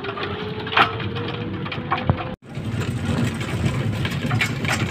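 Rumble and rattle of a small open-sided passenger vehicle riding along a village road, with a faint steady whine and a couple of knocks. The sound drops out for a moment about halfway.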